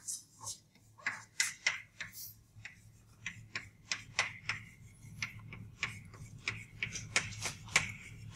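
Chalk writing on a chalkboard: an irregular run of sharp taps, a few a second, with short scratches as each stroke is drawn.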